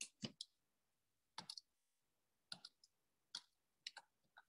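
Slow, uneven keystrokes on a computer keyboard as a word is typed: short clicks in small groups about a second apart, with silence between them.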